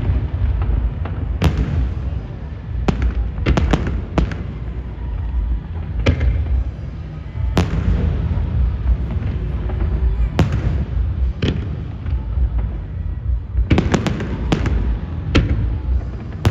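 Aerial fireworks shells bursting in an irregular series of sharp bangs, a dozen or so, clustered in quick runs, over a constant low rumble.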